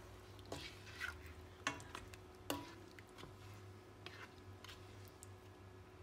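Cooking spoon stirring chicken pieces in a pan of coconut-milk sauce, knocking and scraping against the pan in a few soft, irregular clicks that thin out and stop after about four and a half seconds.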